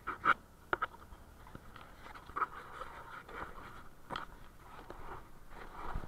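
Irregular scratchy rustling and short clicks close to the microphone: handling noise from fingers and fabric rubbing on the camera.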